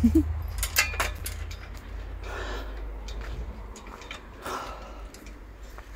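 Footsteps on a dirt garden path, with a few sharp clicks and knocks about a second in and a low rumble on the microphone from handling.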